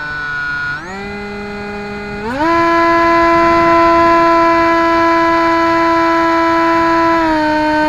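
Electric motor and propeller of a Bixler RC foam plane, heard through its onboard camera: a steady whine that rises in pitch in two steps over the first couple of seconds as the throttle is opened for takeoff. It then holds at high throttle through the climb and drops a little near the end.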